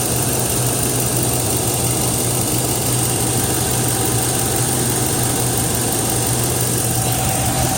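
2002 Chevrolet Tahoe's 5.3-litre V8 idling steadily.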